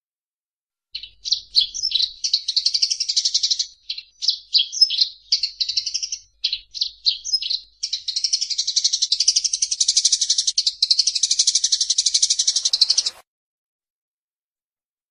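Eurasian tree sparrows calling as they fight: broken bursts of sharp, high chirps, turning about halfway through into a dense, rapid chattering that cuts off suddenly.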